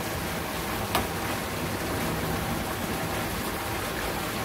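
Steady, even outdoor hiss like water noise, with one sharp click about a second in.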